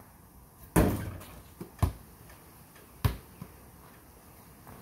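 A basketball striking the hoop and the concrete driveway on a free-throw shot: three sharp knocks about a second apart, the first the loudest with a short ring after it.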